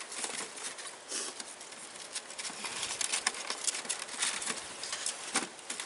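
Foam egg-carton floats and foam strips crackling, squeaking and clicking irregularly as they are pressed and rubbed into a beehive's sugar-water feeder.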